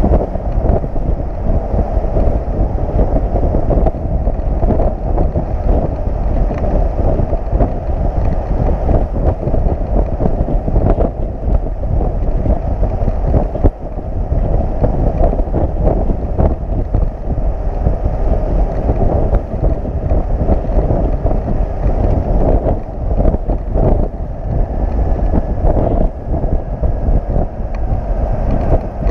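Wind buffeting the microphone of a motorcycle-mounted camera riding on a flatbed tow truck at highway speed, over the truck's steady road noise.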